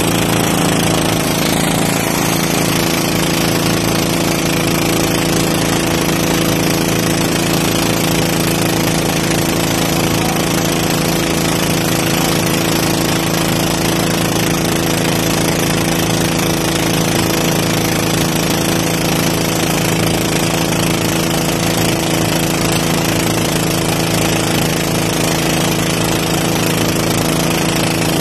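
Motorized outrigger boat (bangka) engine running steadily at speed, loud and rattling, over the rush and splash of water along the hull.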